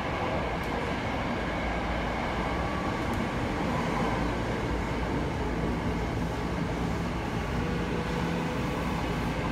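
Steady rumble and hiss of a Tokyo Metro subway train running, heard from inside the passenger car.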